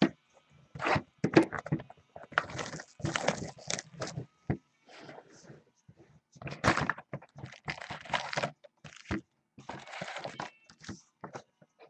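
Cardboard trading-card hobby box being torn open by hand, and its card packs pulled out and stacked on a table: crinkling, tearing and knocking in separate bursts.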